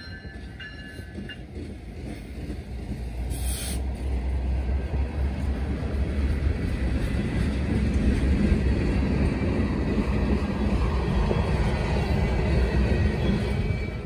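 Canadian Pacific freight train's cars rolling past at close range: a dense rumble of steel wheels on rail that builds over the first few seconds and then holds steady and loud.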